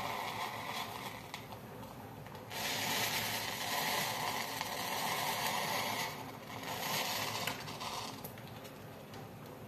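Wooden matchsticks packed inside a plastic bottle burning: a crackling hiss of open flame. It swells louder about a quarter of the way in, dips, and flares up briefly again before easing off.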